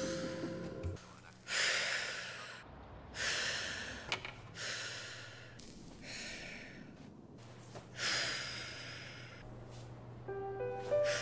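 A woman smoking a cigarette: five long breathy drags and exhales, a second or so apart, over a faint steady hum. Near the end a short run of rising musical notes comes in.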